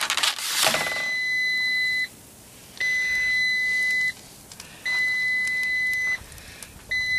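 Electronic alert beeper of a Power Air Fryer Oven Plus sounding long, steady high-pitched beeps, each a little over a second long, repeating about every two seconds. A short clatter comes in the first second.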